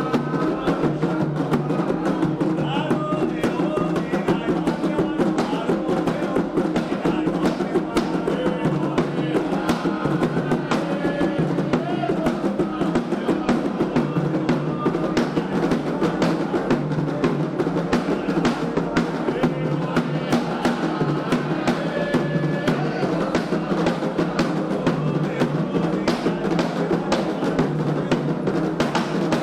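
Candomblé ceremonial drumming on atabaque hand drums: a fast, steady percussion rhythm that runs on without a break.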